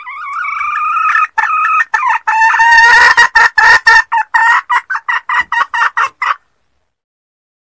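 A junglefowl hen calling: a long, wavering drawn-out note, then a run of short clucks, regular at about four a second, that breaks off abruptly. It is a hen's call of the kind played as a lure for wild junglefowl.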